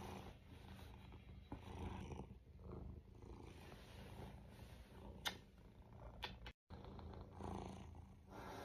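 Domestic cat purring close to the microphone, a faint low rumble that swells and eases with its breaths. A single sharp click sounds about five seconds in, and the sound drops out for a moment just after.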